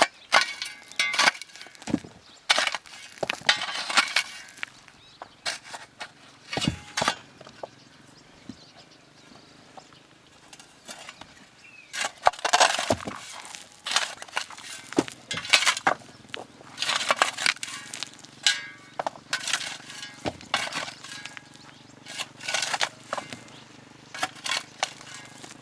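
Irregular knocks and clatter of stones and hand tools in construction work, sharp hits of uneven loudness coming every second or so, with a faint steady low hum in the second half.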